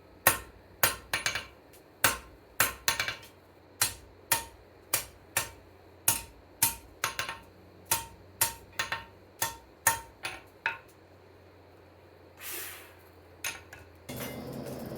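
Blacksmith's hand hammer striking hot steel on an anvil, about two blows a second, some followed by quick lighter taps, each with a brief metallic ring. The hammering stops about eleven seconds in, followed by a short hiss.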